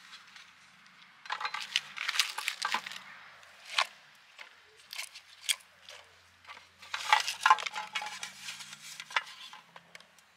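Green onion stalks and garlic cloves being laid by hand into a stainless steel pot of meat and onion: crisp rustling and handling in two bursts, with a few sharp clicks and knocks in between.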